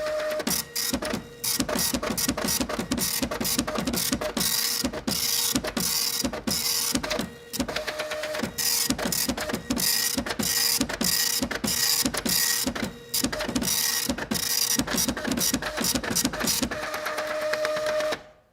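Printer printing: a fast, dense clatter of clicks over a faint steady whine, with short lulls about a second and a half, seven and a half and thirteen seconds in. It starts abruptly and stops abruptly near the end.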